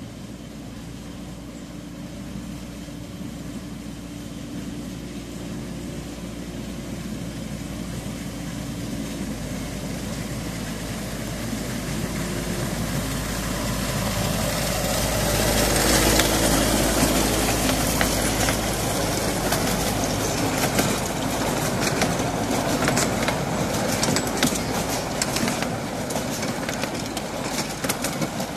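A 10¼-inch gauge miniature railway locomotive approaching with its engine running, growing steadily louder until it passes close by about sixteen seconds in. Its train of passenger carriages then rolls past with quick clicking and rattling of wheels on the rails.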